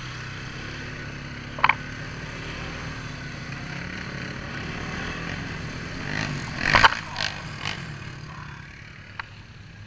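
ATV engine running steadily on the trail, with a sharp knock a little under two seconds in. About seven seconds in comes a loud clattering run of knocks as the quad hits something that damages a wheel, and the engine then eases off.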